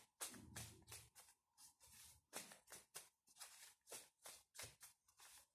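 A deck of tarot cards being shuffled by hand: a soft, steady run of card flicks and slaps, about four a second.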